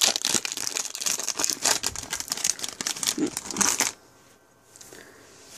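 Foil wrapper of a Pokémon trading card booster pack crinkling and tearing as it is ripped open, a dense crackle that stops about four seconds in.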